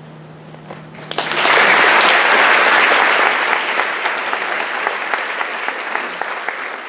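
Audience applauding. The clapping starts about a second in, is at its fullest soon after, then slowly thins out.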